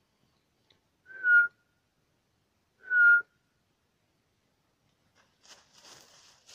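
Two short, loud whistle notes about two seconds apart, each a single clear tone that drops slightly in pitch.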